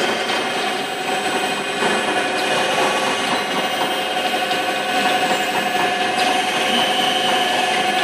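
Dough feeding and dosing machine with sheeting rollers running: a steady mechanical whir with several steady tones from its motors and drive.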